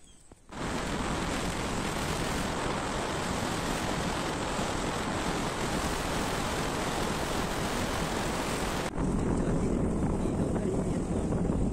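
Wind rushing over the microphone of a camera on a moving vehicle, with road and vehicle noise beneath: a steady, loud noise that starts abruptly about half a second in and becomes heavier and lower for the last few seconds.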